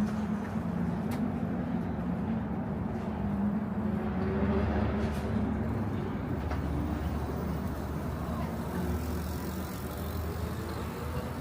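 Steady hum of a running motor vehicle engine over outdoor background noise.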